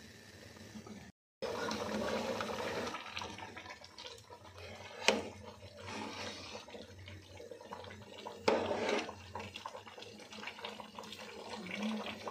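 Rice boiling hard in a large aluminium pot, a steady bubbling wash, while a metal ladle stirs it and knocks sharply against the pot twice.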